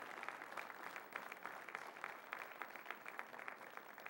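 A church congregation applauding: many hands clapping at once, fading a little toward the end.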